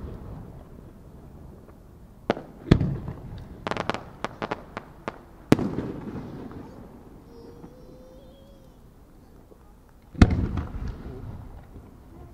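Aerial firework shells bursting: two reports about two seconds in, a quick run of sharp cracks around four seconds, a louder report about five and a half seconds in, and another big boom near ten seconds, each followed by a low rolling echo.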